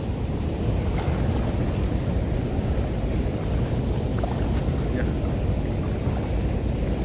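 Wind buffeting a phone's microphone: a steady low rumble, with a few faint ticks.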